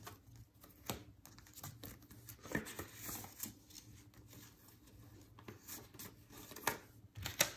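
Paper banknotes and a clear plastic cash-envelope pocket rustling and crinkling as the bills are pulled out and counted by hand. It is soft and scattered, with a few sharper little ticks spread through.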